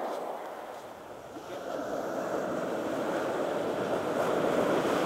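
Sea waves washing in: a steady rush that dips about a second in, then swells again and is loudest near the end.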